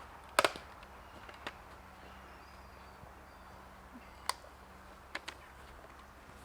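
A few sharp clicks and knocks over a quiet background, the loudest a double click about half a second in, with single ones later on. No chainsaw is running.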